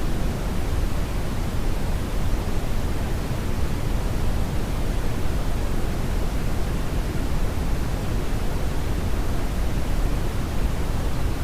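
Brownian (red) noise: a steady, deep, even rumbling hiss, strongest in the low end and thinning out toward the highs, with no changes or events.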